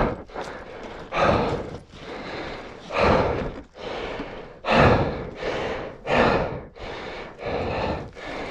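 A man breathing hard and out of breath: heavy breaths in and out, a louder one about every second and a half with quieter ones in between.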